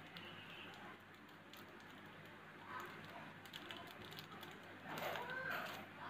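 Faint clicks, taps and rustling of hands handling a sand-art card, a small plastic sand packet and a toothpick. About five seconds in, a brief voice is the loudest sound.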